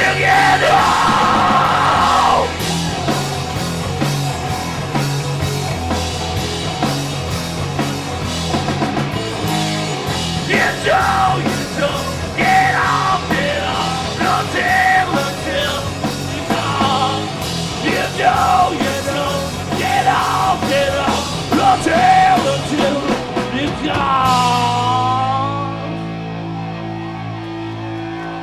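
Live rock band playing loud, with drums, bass, guitar and yelled vocals. Near the end the drums and cymbals drop out, leaving the guitar and bass ringing on a wavering held note.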